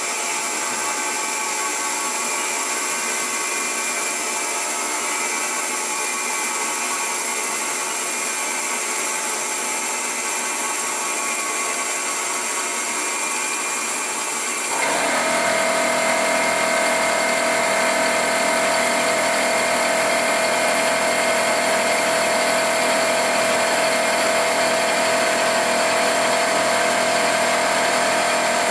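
Milling machine running as it machines a Volkswagen five-cylinder main bearing cap, a steady mechanical whine with several held tones. About halfway through it gets louder and a strong steady high tone comes in.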